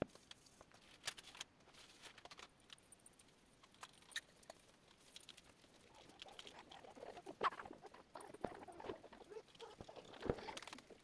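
Faint, irregular scratching and light taps of a graphite pencil drawing on sketchbook paper. The strokes get busier from about the middle on, with a couple of sharper ticks near the end.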